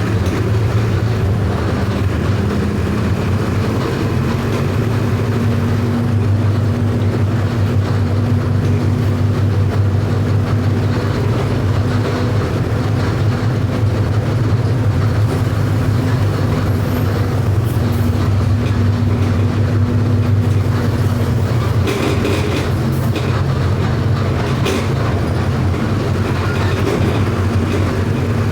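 Mercedes-Benz OF 1519 bus's electronic four-cylinder diesel engine running steadily with a deep, even rumble as the bus drives. A few brief rattles or clicks come through in the second half.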